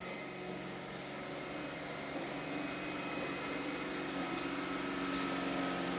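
Roomba robot vacuum running with a steady motor hum and whir, slowly growing a little louder, with a couple of faint ticks near the end.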